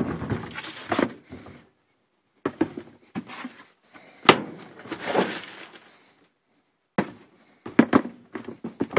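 Tissue paper rustling and crinkling in bursts as sneakers are handled in a cardboard shoebox, with a sharp knock about four seconds in.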